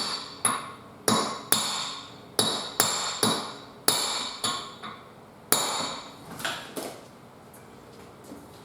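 A heavy hammer striking metal about ten times in irregular blows, each with a ringing tail, driving the stuck rear half shaft out of the hub. The last couple of blows are lighter and then it stops.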